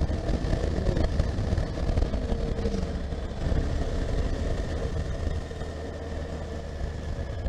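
Honda CB1300SF's inline-four engine running as the motorcycle is ridden, a steady low drone that gets a little quieter after about five and a half seconds.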